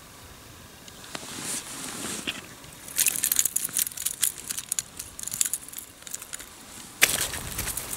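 Snow crunching and crackling: quiet at first, then a dense run of crackles from about three seconds in, with a sudden louder stretch near the end.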